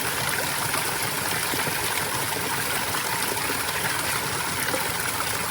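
Running water of a stream, a steady unbroken rush.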